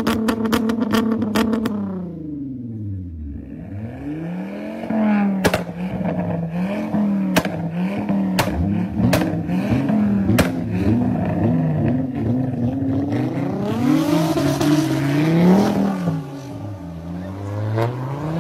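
Modified car engine and exhaust being revved while parked. It starts held at high revs with a rapid, regular stutter, then the revs fall away. Repeated rising and falling blips follow, with sharp exhaust cracks and pops among them, and a last rise near the end.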